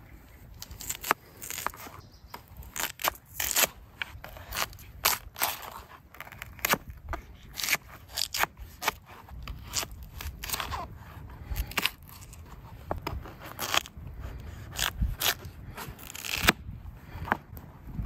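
Morakniv knife slicing a raw potato into wedges on a thin plastic cutting mat: a run of irregular crisp cuts, with the blade clicking against the mat.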